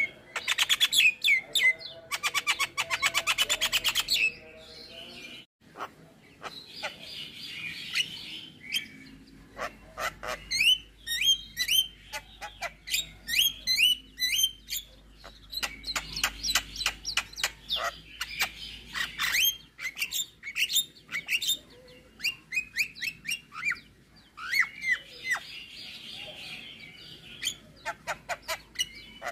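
Javan myna (jalak kebo) singing a long, varied song: a fast rattling trill near the start, then harsh rasping phrases mixed with quick chirps and downslurred whistles.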